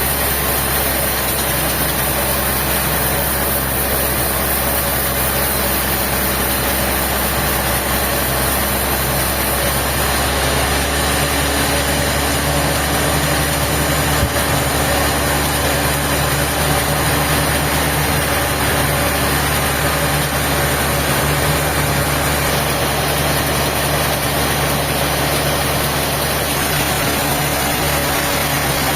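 A heavy engine running steadily at a constant speed, with a low hum whose note shifts slightly about ten seconds in.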